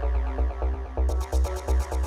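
Electronic dance music with a steady, pounding kick-drum beat under synth notes; fast hi-hat ticks come in about halfway through.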